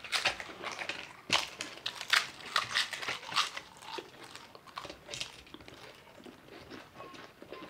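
Crisp fried papad chips being bitten and chewed, a quick irregular run of crunches that thins out over the last couple of seconds.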